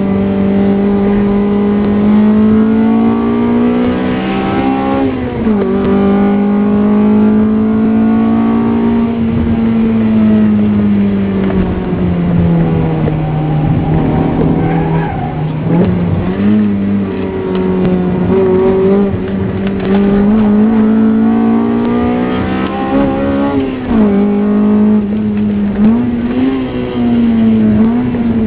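Honda Civic SiR's B16 1.6-litre DOHC VTEC four-cylinder engine heard from inside the cabin, driven hard around a track. The engine note climbs under acceleration, sags when the throttle lifts, and drops quickly several times, at about five seconds, sixteen seconds and twice near the end.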